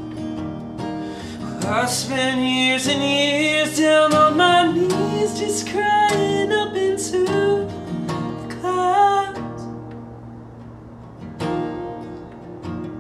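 A man singing live with his own acoustic guitar. The voice comes in about two seconds in and stops about three-quarters of the way through, leaving the guitar playing alone near the end.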